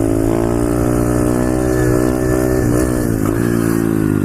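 Pit bike engine running under throttle while riding, its pitch briefly dropping about three seconds in and then climbing again.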